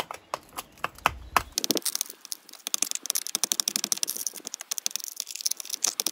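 A thin metal rod jabbing and chipping at glassy boron oxide in the bottom of a steel can, breaking it into shards: a few scattered taps, then from about two seconds in a fast, irregular run of sharp clicks and ticks.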